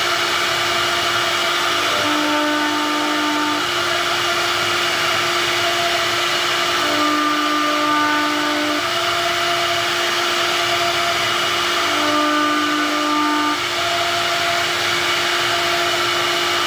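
CNC router spindle running with a steady whine while its bit carves a relief pattern into a wooden panel. A second, lower tone comes in three times, each time for about a second and a half.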